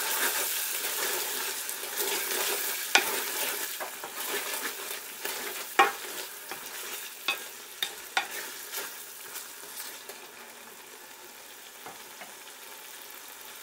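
A wooden spatula stirring a thick onion masala in a metal pot, mixing in freshly added spice powders. Scattered knocks and scrapes of the spatula against the pot sound over a steady sizzle of frying. The stirring stops about ten seconds in, leaving a quieter sizzle.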